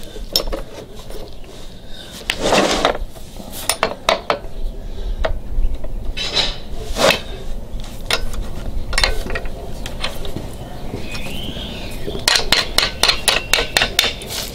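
Irregular metallic taps and clinks as a wrench is struck against a steel pin to drive it into the Proslide XT sulky's shock mount. The pin is stiff because the new spring is pulling against it. A quick run of taps comes near the end.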